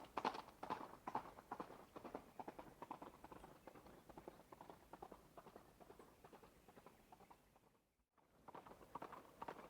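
Horse's hooves running on hard ground, a steady run of hoofbeats that fades away to nothing about eight seconds in, then starts up again near the end.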